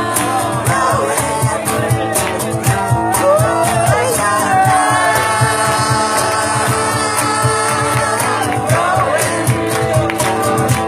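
Music: a song with held, gliding sung notes over a steady beat.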